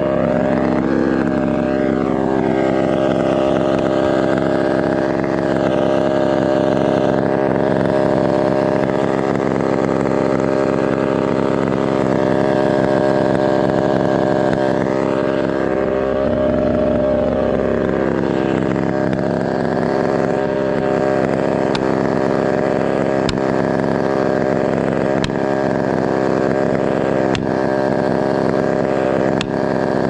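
Chainsaw engine running steadily, its pitch swelling a couple of times. Later on, sharp knocks about every two seconds as plastic felling wedges are driven into the cut.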